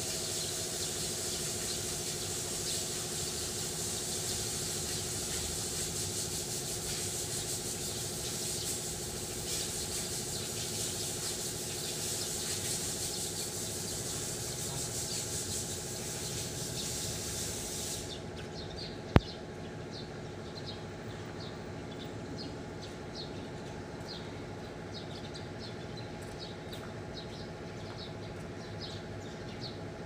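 Outdoor ambience: a steady mechanical hum with a high hiss over it. The hiss cuts off abruptly about two-thirds of the way in. After that, short high chirps repeat roughly once a second, and a single sharp click comes just after the hiss stops.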